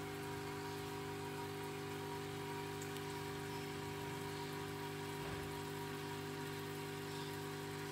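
Aquarium filter running: a steady electric hum under constant trickling, splashing water.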